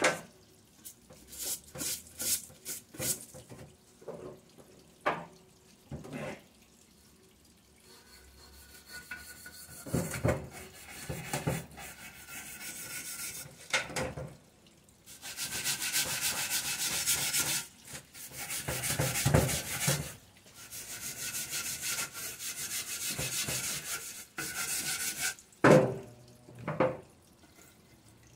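Scraping and rubbing as an engine oil pan is cleaned of hardened, dried oil. Short strokes come one after another for the first several seconds. After a quiet spell, longer steady hissing stretches of scrubbing fill much of the second half, with a couple of sharp scrapes near the end.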